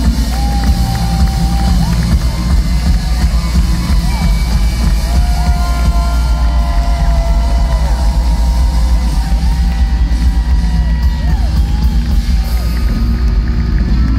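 Live rock band playing loud through a venue PA: electric guitar and bass guitar over a drum kit, with heavy low end and long held notes that bend in pitch.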